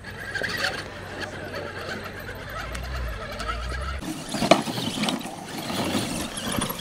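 Small electric RC crawler truck climbing a steep rocky trail, its motor and gearbox whining with a wavering pitch as the tyres scrabble on loose dirt and stone. About four seconds in, the sound changes to sharper clicks and knocks of tyres and chassis over rocks.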